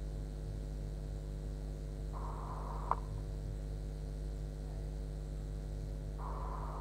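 A steady low hum with faint hiss. About two seconds in, a brighter band of hiss opens and cuts off with a click a second later, then opens again near the end.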